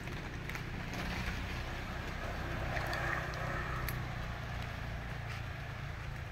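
Outdoor ambience of wind on the microphone: a steady low rumble with a gust swelling about halfway through, and a few faint scattered clicks of footsteps on a leaf-strewn brick path.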